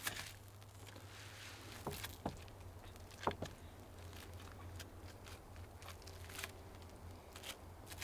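Wooden spatulas knocking and scraping on a wooden cutting board while lifting and breaking apart a cooked salmon fillet: a few soft, scattered knocks, the loudest about three seconds in, over a faint low hum.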